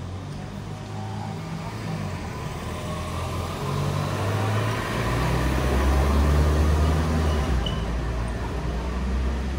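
A motor vehicle driving past close by: its engine and road noise grow louder over the first six seconds or so, then ease off.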